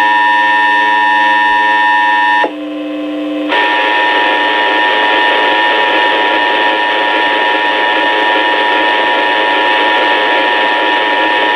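Emergency Alert System test alert tone: a loud, steady electronic tone with several fixed pitches, heard through a radio broadcast. About two and a half seconds in it drops for a second to a quieter, lower tone, then returns with a hiss of static beneath it.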